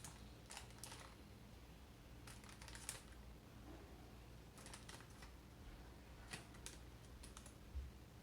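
Faint, scattered light clicks and taps in small clusters: pea pods being picked up and set down on a kitchen work surface as they are counted out.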